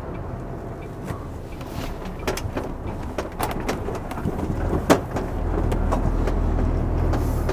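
Heavy goods vehicle's diesel engine running, heard from inside the cab as the lorry turns off the road, getting louder about five seconds in. A few sharp knocks and clicks sound over it.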